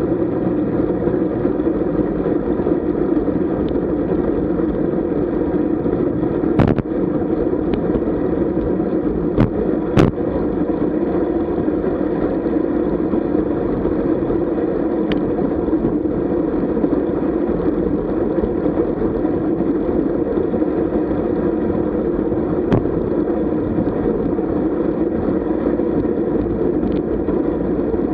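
Steady, muffled rush of wind and road noise picked up by a camera riding on a road bicycle, with a few sharp knocks around a quarter to a third of the way in.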